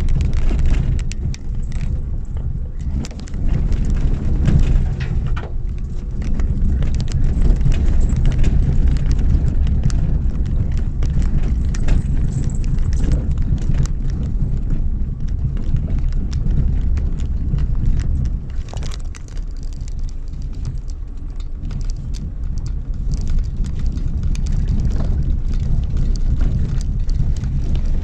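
A Mitsubishi Pajero Mini driving slowly over a rough gravel and stone track, with a steady low rumble from the engine and tyres and a stream of small stones crackling and knocking underneath.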